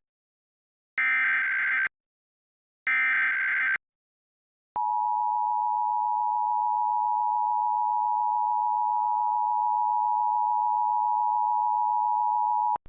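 Emergency Alert System test tones: the last two of three short bursts of the digital SAME header data tones, then the EAS attention signal, a steady two-tone beep (853 and 960 Hz) held for about eight seconds and cutting off sharply.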